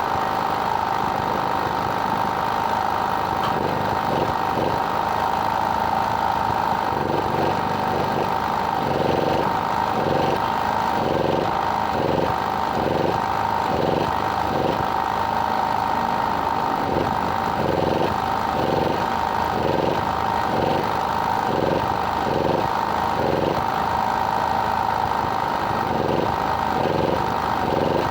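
A small engine running steadily with a constant hum. From about a third of the way in, a pulse repeats roughly every 0.7 seconds.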